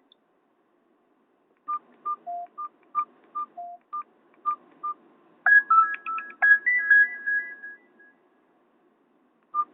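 Nokia 216 mobile phone's speaker: about a dozen short key beeps at two pitches, then a short simple ringtone melody of stepped tones lasting about two seconds, a Nokia 7230 ringtone being played back, and one more beep near the end.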